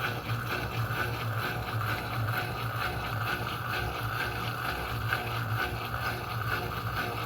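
Electrolux Turbo Economia LTD06 top-loading washing machine running mid-wash, a steady motor hum with water churning in the tub.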